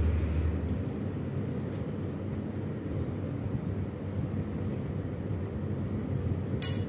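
Steady low rumble and hum of background room noise, with one sharp click near the end.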